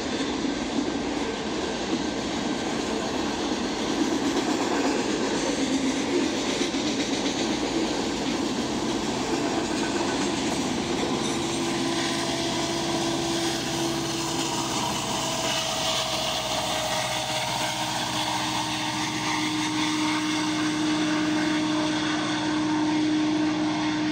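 Freight train of autorack cars rolling past, a continuous rumble of steel wheels on rail. From about halfway through, a locomotive at the rear of the train adds a steady engine tone that dips slightly in pitch as it goes by.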